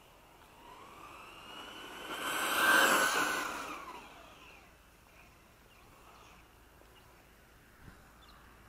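Brushless electric motor of an LRP S10 Blast BX RC buggy whining as it speeds up and then fades: the pitch rises to a loud peak about three seconds in, then falls away.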